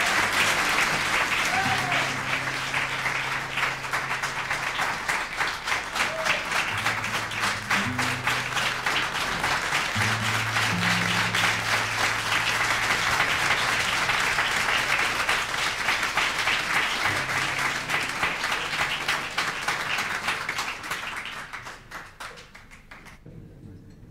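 Live audience applauding at the end of a song, over the band's last sustained low notes; the applause dies away near the end.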